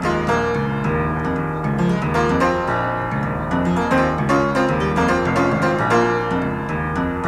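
Instrumental music with piano to the fore over a low bass line, many quick notes throughout.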